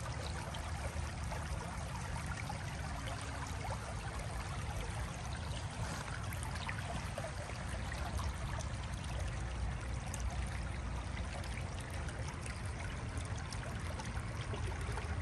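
Shallow creek water running over rocks in a small riffle, a steady rushing trickle with no break.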